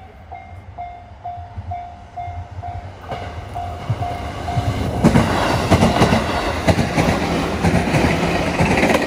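Japanese level-crossing warning bell ringing a repeating ding, a little under three a second. About three seconds in, an electric commuter train starts passing close by, and from about five seconds its loud rumble and wheels clacking over the rail joints drown out the bell.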